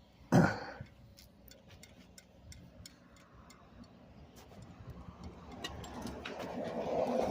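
A single knock, then light ticking a few times a second, typical of a bicycle's freewheel hub clicking as the bike rolls, with rolling noise building near the end.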